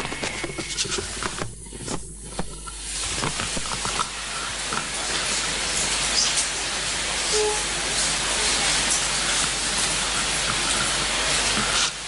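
Audience applauding: scattered claps at first, then thick, steady applause that stops near the end.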